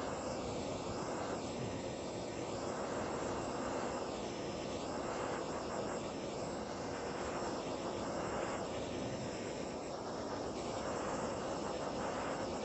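Handheld gas torch burning with a steady hiss, its flame played over a piece of rotten wood to char the surface.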